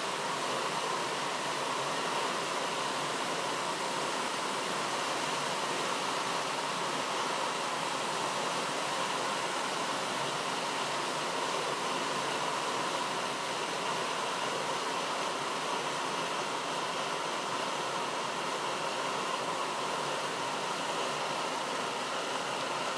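Optimus 8R petrol stove's burner running with a steady hiss as the vaporised fuel burns.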